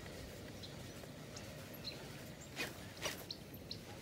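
Quiet open-air background with a steady low rumble, two soft knocks a little past halfway, and a few faint, short high chirps.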